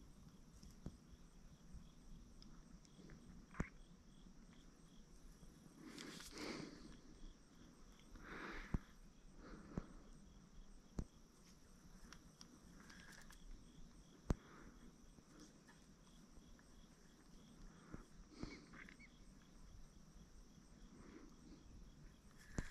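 Near silence: a faint, steady, high insect trill like crickets, with a few faint sharp clicks and soft handling knocks scattered through.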